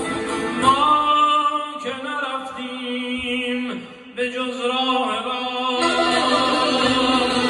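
Live male singing of Iranian traditional music: long, wavering, ornamented vocal lines over a steady held note from the ensemble, with a short break about four seconds in.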